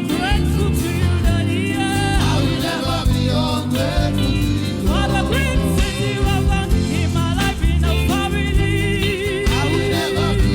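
Gospel praise music: a singer's voice with wavering pitch over band accompaniment with heavy bass.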